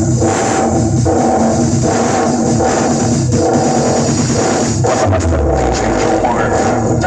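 Loud music with a drum beat and heavy bass played through a large outdoor-cinema PA sound system during a sound test.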